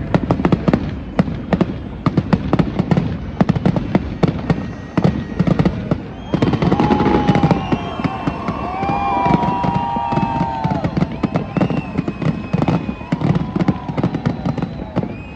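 Aerial fireworks going off in a dense, rapid run of bangs and crackles. From about six seconds in, wavering whistling tones sound over the bangs.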